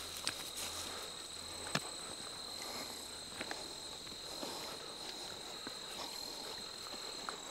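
Field insects trilling in one steady high-pitched tone, with a few faint clicks now and then.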